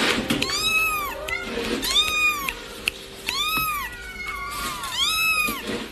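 Sphynx kitten meowing repeatedly: about five high, thin meows, each rising and falling in pitch, roughly one a second.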